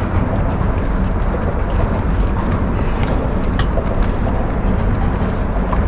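Steady low outdoor rumble and hiss with a few faint clicks and knocks.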